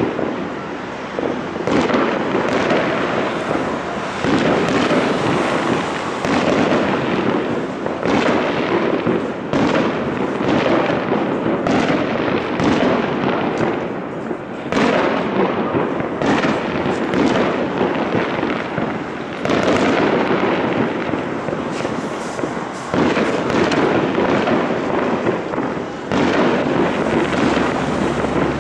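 Aerial fireworks going off in a dense, continuous barrage: overlapping bangs of bursting shells and crackling, with a few brief lulls.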